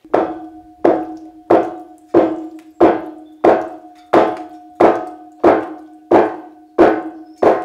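Background music with a steady percussive beat, about three beats every two seconds, over held low notes.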